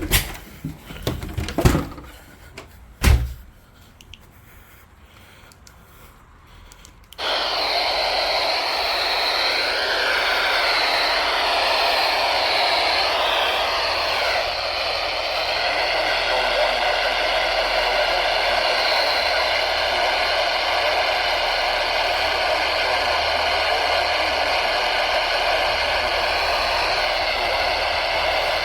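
A few handling knocks, then a radio receiver comes on about seven seconds in with steady loud static. Whistling tones in the static wander up and down in pitch for several seconds, then settle into steady whistles.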